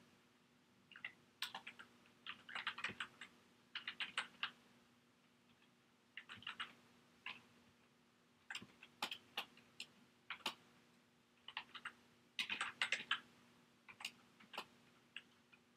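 Computer keyboard typing in short bursts of keystrokes with pauses between, over a faint steady low hum.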